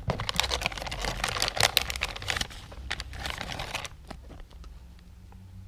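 Fishing-lure packaging being handled: a quick run of crinkles and clicks for about four seconds, then only a few scattered clicks.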